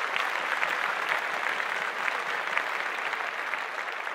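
A crowd applauding: many hands clapping in a dense, steady patter that eases off slightly near the end.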